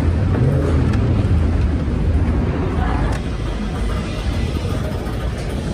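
Airport terminal ambience: a steady low rumble with a faint murmur of distant voices, easing slightly about halfway through.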